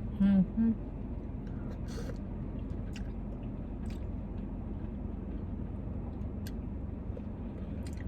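Someone eating: a short two-note 'mm-mm' hum near the start, then faint clicks of chewing and utensils over a steady low rumble.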